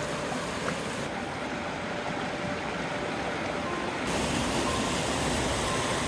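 Water rushing over rocks in a shallow stream, a steady hiss. It thins in the highs about a second in and comes back fuller and brighter about four seconds in.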